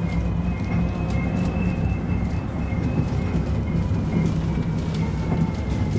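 Electric city bus driving, heard from inside near the front: a steady low rumble of road and drivetrain with a faint high whine held throughout, and light rattles and clicks from the cabin fittings.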